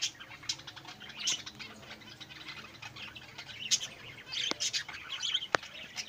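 Small cage birds chirping in an aviary: many short, high chirps and tweets overlapping at an irregular pace. Two sharp clicks come near the end.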